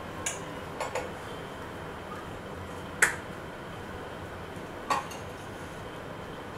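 Steel kitchen containers and utensils clinking as they are handled at a stove: about five short, sharp knocks, a few close together in the first second, the loudest about three seconds in and another near five seconds. A steady low hiss runs underneath.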